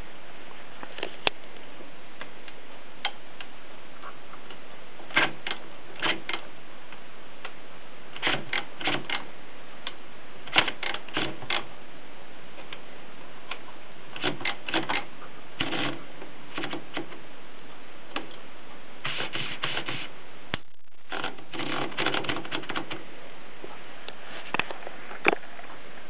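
Adler Tippa Pop portable manual typewriter being worked by hand: its mechanism clicks and clacks in short, irregular runs of a few strokes each, over a steady hiss.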